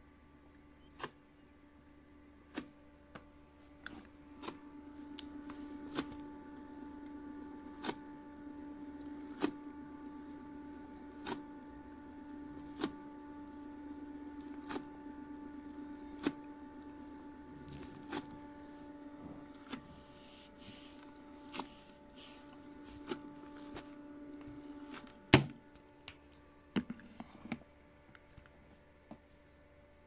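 LG WD-14370FD direct-drive front-loading washing machine in demo mode, its drum turning a dry load with a steady motor hum and a light click about every second and a half. The hum stops about 25 seconds in, followed by a loud thump as the door is shut and a few smaller knocks.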